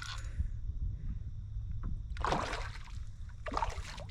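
Water sloshing and splashing at a kayak, with two short splashes about two and three and a half seconds in, over a steady low rumble.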